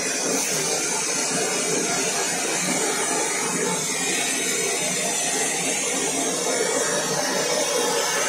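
Handheld gas torch flame hissing steadily while it heats a copper pipe joint for soldering.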